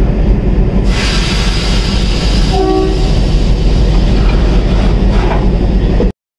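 Diesel locomotive running close by with a loud, steady low engine drone; from about a second in a rushing hiss joins it. A short horn note sounds about two and a half seconds in, and the sound cuts off abruptly near the end.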